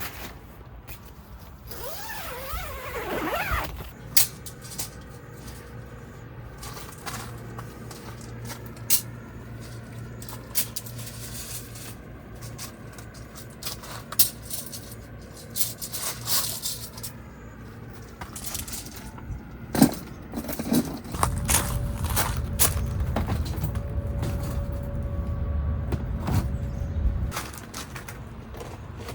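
Handling noises: scattered clicks, knocks and scrapes of objects being moved about. A rising squeak comes about two seconds in, and a low rumble runs for several seconds past the middle.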